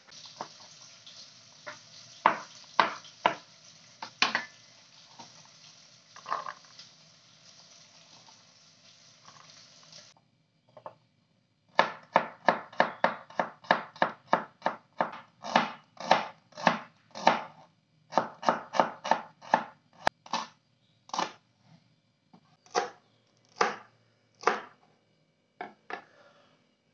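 Kitchen knife cutting on a plastic cutting board: scattered cuts through green beans, then, after a short pause, garlic, shallot and red chilies chopped in a quick even run of about three strokes a second that slows to spaced single cuts.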